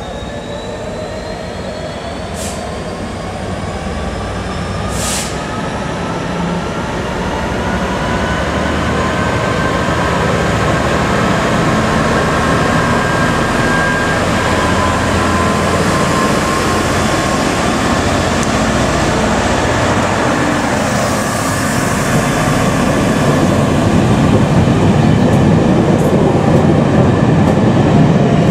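Class 66 diesel locomotive with its two-stroke V12 EMD engine pulling away with a train of passenger coaches. Its tones rise steadily in pitch as it accelerates, and the sound grows louder as the locomotive and then the coaches pass close by, with a few sharp clicks from the wheels.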